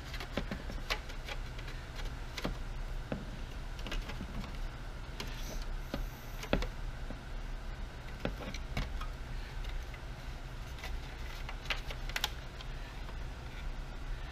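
Scattered light clicks and taps of hard plastic gauge-cluster parts, the clear lens and bezel, being handled and fitted together, over a steady low hum.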